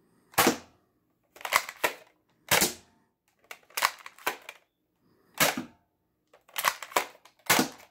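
Nerf Elite Disruptor dart blaster being primed and fired over and over: short, sharp spring-powered pops about a second apart, as foam darts hit a TV screen.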